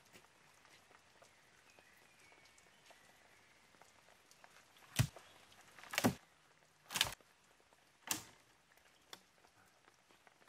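Wooden knocks as a long log is dropped onto a pile of logs: four sharp knocks about a second apart in the second half, over a quiet forest background.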